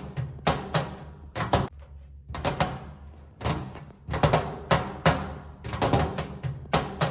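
Fingernails tapping on a metal tray in quick, irregular clusters of taps, each tap leaving a short ring from the tray.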